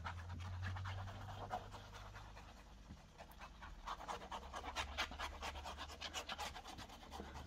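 Paper and cardstock being handled while liquid glue is squeezed from a fine-tipped bottle: a quick run of small crackling clicks and scratches, thicker in the second half.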